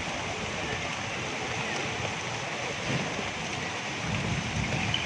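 Steady rain falling, an even hiss, with low rumbles swelling about three and four seconds in.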